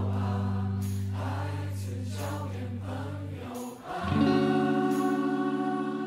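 Overdubbed electric guitars, Stratocaster-style, playing a held chord that slowly fades. A new chord is struck about four seconds in and rings on with a fast wavering.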